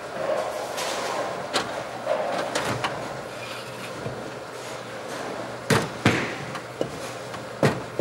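Bowling alley ambience: a series of sharp knocks and clatters from bowling balls and pins, the loudest two close together a little past the middle and another near the end, over a steady background hum.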